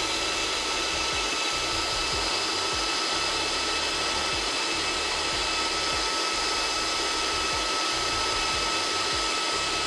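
Chillout micro cooling unit for race-car drivers running, its motor holding a steady whine at one pitch over an even fan whoosh while it pumps coolant through a cooling shirt to prime the loop of air bubbles.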